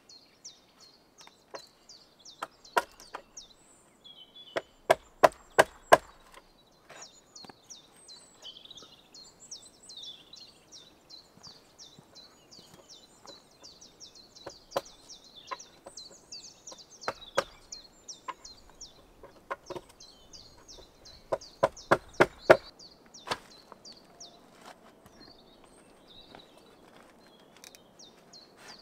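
Repeated sharp strikes on wood, coming in quick runs of several blows with pauses between. A bird chirps rapidly and repeatedly in the background through much of it.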